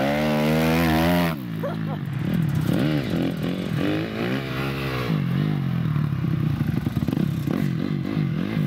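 Honda dirt bike engine held at high revs for about a second, then dropping, followed by the throttle being blipped so that the revs rise and fall over and over.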